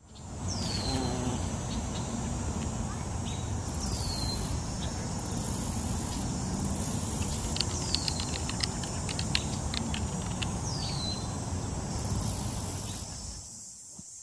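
Outdoor insect and bird ambience: a steady high insect trill with louder buzzing bursts at intervals, and a short falling whistled call repeated about four times. It fades out near the end.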